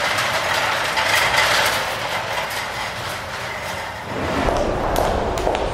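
Hospital sound effects from a sound-library demo: a steady mechanical rattling, rolling noise with scattered clicks, turning deeper about four seconds in.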